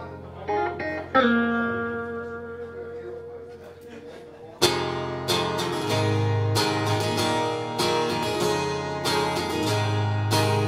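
Acoustic and electric guitars playing in F minor. A chord rings out and fades, then about four and a half seconds in rhythmic strumming starts and keeps going.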